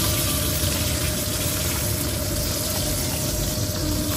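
Fish sizzling steadily as it pan-fries in hot oil in a wok.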